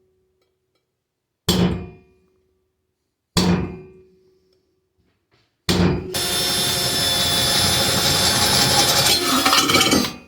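Two sharp metal-on-steel blows, each ringing briefly, about two seconds apart. Then, from about six seconds in, a power tool grinds or cuts steel with a steady harsh whine and high ringing tones, stopping just before the end.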